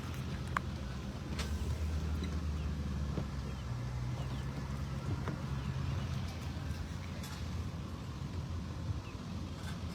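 Large engine idling with a low, steady hum, and a few faint clicks.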